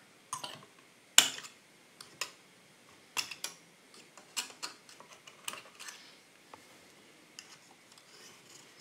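A string of light, separate clicks and ticks as a knife works at thin tensioned wires on a metal jig, cutting them free. The sharpest click comes about a second in.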